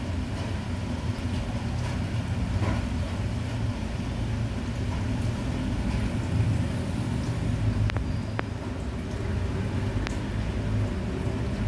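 A steady low rumble, with a few faint clicks in the second half.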